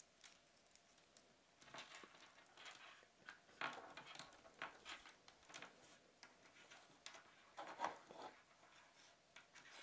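Faint rustling and light taps as the GranVela V2 earphones' cable, plug and earpieces are moved and laid out by hand on a wooden tabletop.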